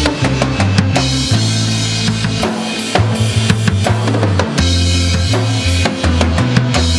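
TAMA acoustic drum kit played along to a synth downtempo backing track: bass drum, snare and cymbals over a synth bass line that moves between held low notes.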